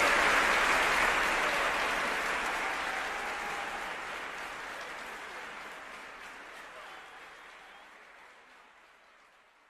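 Audience applause, fading steadily away to silence.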